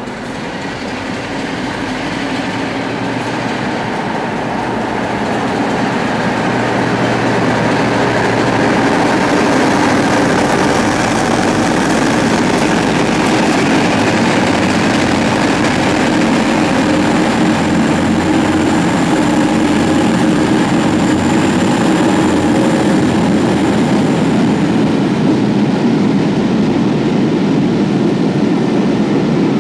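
Class 47 diesel-electric locomotive approaching and passing close by, its engine running, then a train of coaches rolling past with a steady loud rumble of wheels on rail. The sound builds over the first several seconds and then holds. A thin high squeal sounds for several seconds midway.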